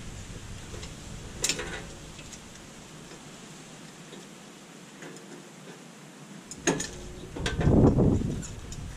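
Handling sounds from work on a car's rear brake: a sharp click about a second and a half in, another just before seven seconds, then a longer, louder dull clatter around eight seconds in.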